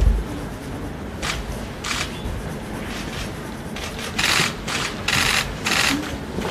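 Camera shutters clicking: a couple of single shots, then rapid bursts in the second half.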